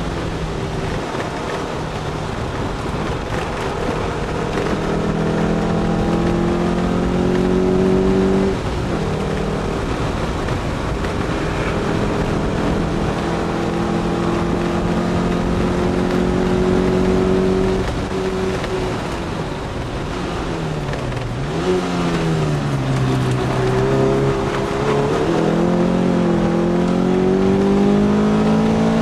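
The S1 Lotus Elise's Rover K-series four-cylinder engine, heard from inside the cabin while lapping a track. It is held at high revs with a brief break in the note about a third of the way in. It eases off and dips in pitch past the middle, then climbs again near the end, all over steady wind and road noise.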